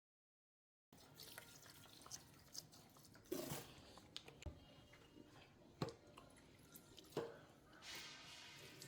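After about a second of dead silence, faint scattered clicks and light knocks of small objects being handled, with a short hiss near the end.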